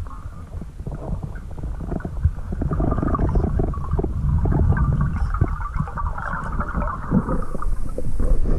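Underwater sound picked up by a camera in its waterproof housing: a steady, muffled low rumble with many small clicks and pops.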